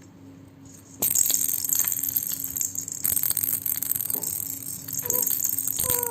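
A baby's toy rattle being shaken, starting suddenly about a second in and rattling on with many small clicks. Near the end the baby gives a short high call and then a longer falling one.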